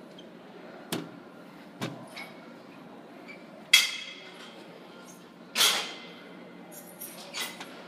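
Metal gym weights clanking: several sharp clanks and clinks, some with a brief metallic ring, the loudest about four seconds in.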